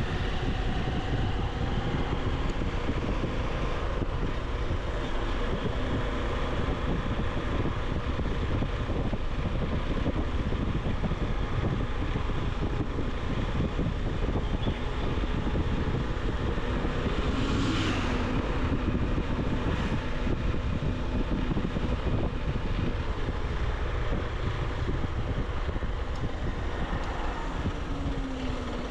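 Motorcycle engine running steadily on the move, with wind rushing over the microphone. About eighteen seconds in, a short louder rush of noise passes.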